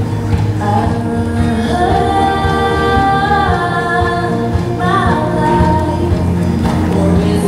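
Music with a woman's voice singing long held notes, a new phrase beginning about five seconds in.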